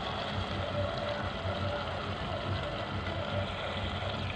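Thick potato and pointed gourd curry bubbling as it simmers over high heat in an open pressure-cooker pan, over a steady, pulsing low hum.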